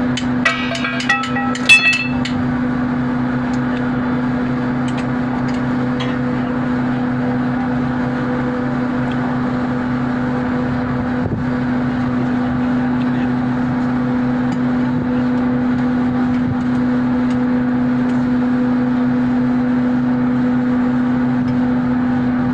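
Several ringing metallic clinks in the first two seconds as a ratchet wrench is handled against metal, over a steady low hum of running machinery.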